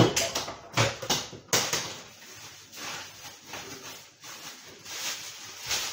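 A thin plastic bag crinkling and rustling in irregular bursts, handled to be spread over dough tins as a cover, with a sharp knock right at the start.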